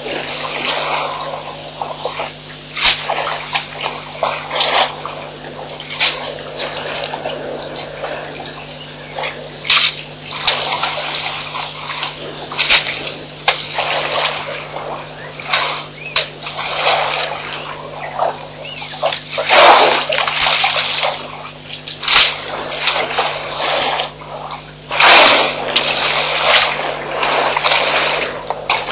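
African elephant drinking at a waterhole: its trunk splashing and sloshing the water in irregular bursts every second or two, with water squirted into its mouth.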